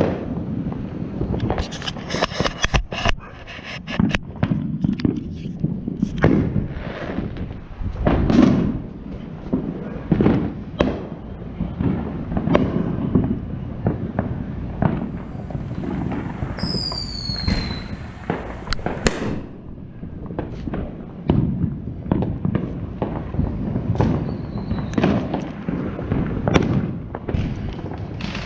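Fireworks going off: repeated bangs throughout, with a quick string of crackling firecracker pops in the first few seconds. About halfway through, a firework gives a falling whistle.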